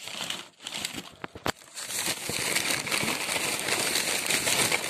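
Paper packing crinkling and dry lichen-covered sticks clicking against each other as a hand rummages through them in a cardboard box. A few separate clicks at first, then from about two seconds in a dense, continuous crackly rustle.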